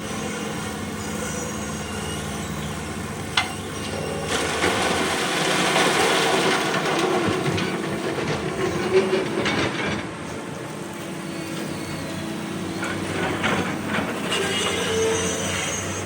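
Hydraulic excavator working, its diesel engine running steadily under metallic clanking and brief squeals. There is a sharp knock about three seconds in, and a louder, noisier stretch from about four to ten seconds in.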